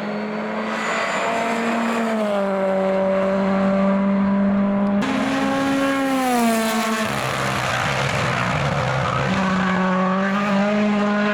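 Rally car engine running flat out at high revs. The pitch falls steeply about seven seconds in as the car brakes and changes down, then rises again as it accelerates away.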